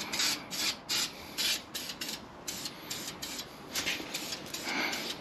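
Aerosol spray can of clear coat spraying in short hissing bursts, about two to three a second.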